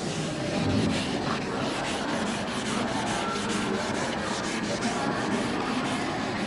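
Board eraser rubbing back and forth across a classroom board, a steady scrubbing noise.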